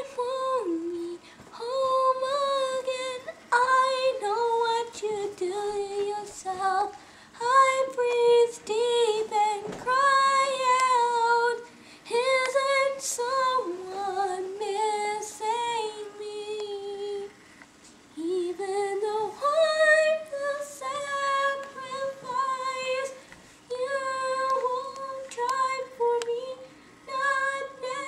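A girl singing a song unaccompanied, one voice in long held phrases with short breaths between them.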